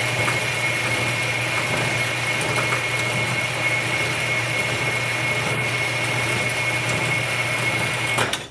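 Vintage Enco horizontal bandsaw running through a cut in metal: a steady motor hum with a high whine from the blade. Near the end there are a few sharp clicks and the sound drops away as the cut finishes.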